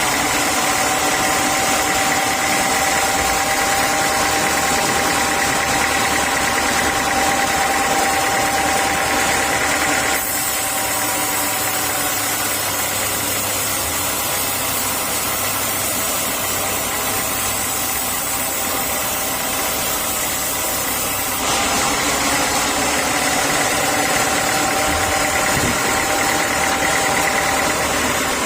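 Sawmill saw machinery running steadily: a constant motor drone with a high steady whine over it. The sound changes abruptly twice, about ten and about twenty-one seconds in.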